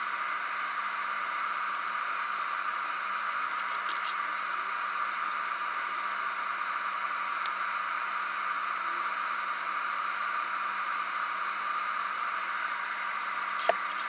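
TIG welding on steel: a steady hiss, with a few faint clicks and a single sharp knock near the end.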